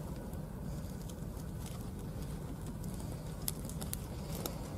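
Dry esparto grass strands rustling and crackling faintly as they are plaited by hand into a braid, with scattered small crackles over a steady low rumble.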